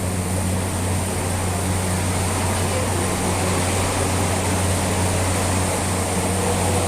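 Metro train running: a steady rumble with a constant low hum and a high hiss.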